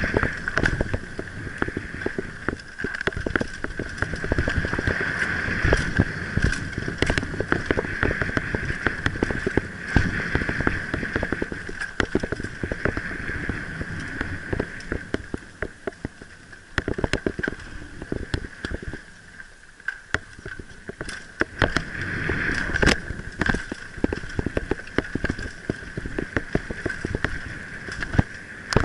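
Mountain bike riding fast down a dirt forest trail, heard from a helmet camera: wind rushing over the microphone, tyres rumbling on the dirt, and frequent sharp knocks and rattles as the bike hits roots and bumps, over a steady high buzz. The noise drops for a few seconds past the middle, then picks up again.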